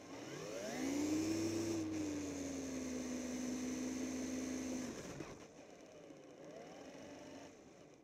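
Remote-control truck's motor and drivetrain whining as it speeds up. The whine rises over the first second and holds steady, then dies away about five seconds in. A fainter, shorter rise and fall follows near the end as the truck turns in and stops.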